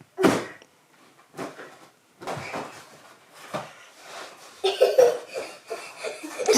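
Several knocks and thumps, the loudest right at the start and a few more spaced about a second apart. Short sounds from a child's voice come in near the end.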